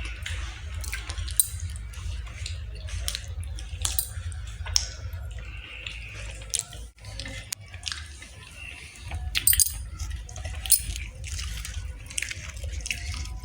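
Wet clicking and smacking sounds of someone chewing chicken, with several sharper clicks, over a low steady hum.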